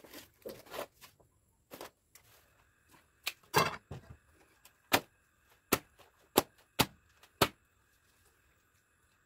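A series of sharp knocks or taps: a few light ones at first, then about seven louder ones spaced roughly half a second to a second apart, stopping near the end.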